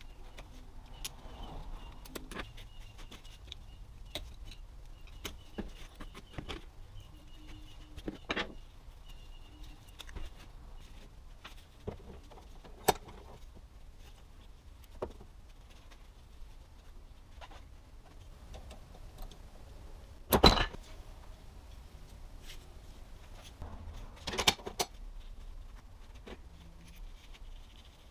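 Scattered metal clicks and clinks of hand work on a CV axle: a boot band clamp pried at with a small screwdriver, and the axle handled in a bench vise while its rubber boot is worked off. Two sharper knocks stand out, about twenty and twenty-four seconds in.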